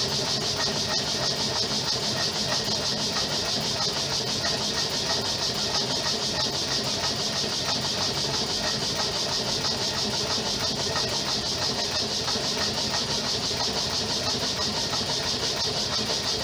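Homemade Stirling engine generator running steadily under a lamp load, a rhythmic beat with a strong steady hiss. It is running lubricant-free on new PTFE piston seals.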